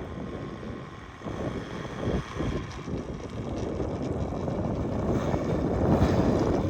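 Wind rumbling on the microphone, with a vehicle engine growing louder over the last few seconds, likely a motorcycle going by.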